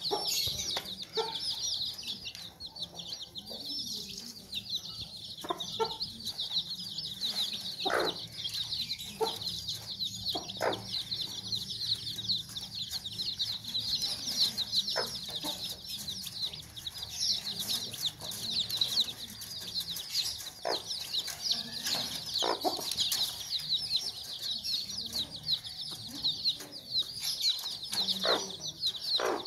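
A brood of chicks peeping constantly in a dense chorus of high chirps, while the Sussex mother hen gives short, low clucks every few seconds.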